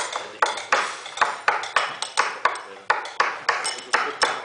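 Improvised percussion on restaurant tableware: sharp, ringing taps on glasses and cutlery, about four a second in an even, repeating pattern that demonstrates a clave-style rhythm.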